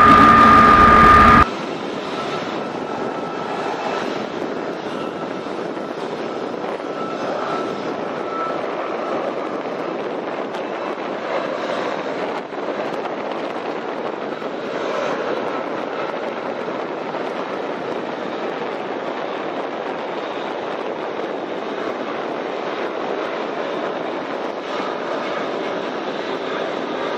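Mil Mi-26 heavy-lift helicopter. For the first second and a half, a loud on-board recording with a high steady turbine whine, which cuts off suddenly. After that comes the steady, even rotor and engine noise of the helicopter flying past at a distance.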